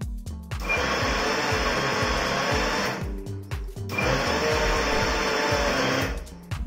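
Electric mixer grinder with a steel jar running in two runs of about two and a half and two seconds, with a short pause between about three seconds in, grinding roasted almonds and seeds into powder.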